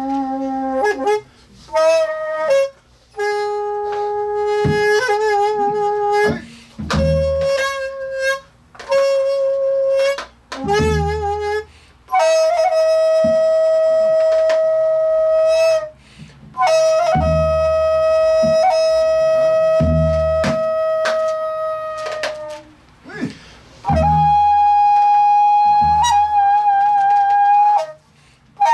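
Daegeum, the Korean large bamboo transverse flute, playing a slow sanjo melody in jinyang rhythm: long held notes, several with a deep wavering vibrato, in phrases broken by short pauses. A few low buk drum strokes from the accompanying drummer mark the slow beat.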